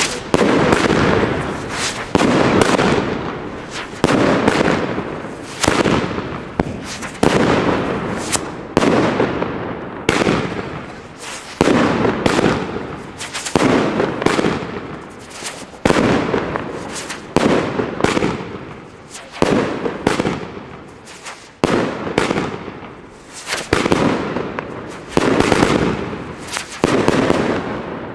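Evolution Fireworks Golden Sky Twister, a 361 g firework battery with golden whirl effects, firing shot after shot. Each shot is a sharp, hard-hitting bang followed by a fading hiss, coming about one every second to second and a half, and the last one fades out near the end.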